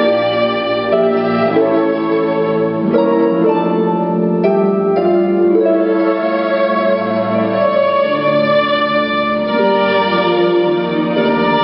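Chamber string orchestra playing classical music, violins carrying held notes over cellos and double basses, with a concert harp joining in.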